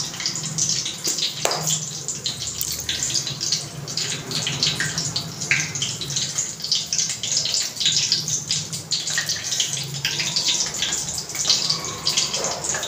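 Hands squeezing and pressing a soft, sticky mash of potato and bread, giving dense, irregular wet crackling over a steady low hum.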